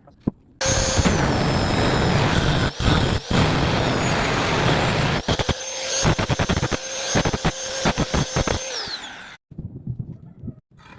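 Electric angle grinder running at speed and cutting into steel pipe, with rapid scraping clicks in the second half, then stopping about nine seconds in.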